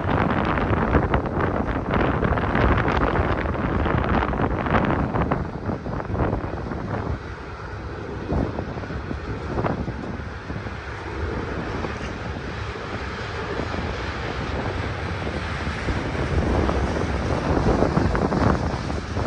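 Strong, gusty wind buffeting the microphone, with a low rumbling noise under it. The gusts are heaviest at first and again near the end, easing in between.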